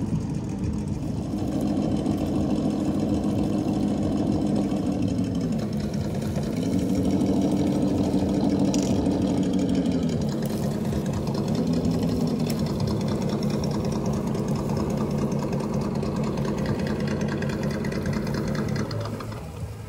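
Electric motors and gearboxes of RC scale crawler trucks whining steadily as they crawl across a steep hillside, the pitch dropping and rising a few times with the throttle. The whine stops about a second before the end.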